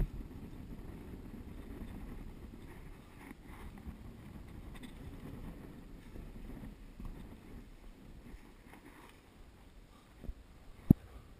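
Wind buffeting the microphone with a low, uneven rumble that eases after about eight seconds. A few sharp knocks stand out, one at the start and two near the end, the second of these the loudest.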